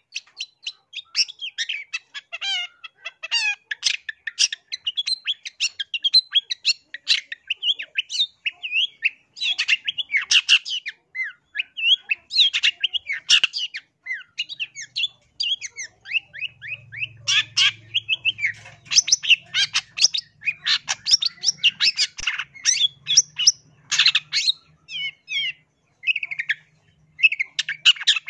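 Long-tailed shrike singing a rapid, varied chattering song of short high notes and trills, almost without pause.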